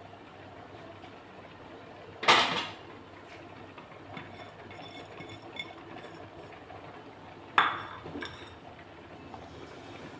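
Kitchenware knocking against a cooking pot: two sharp clatters about five seconds apart, the second with a short ring, and a few light clinks between them.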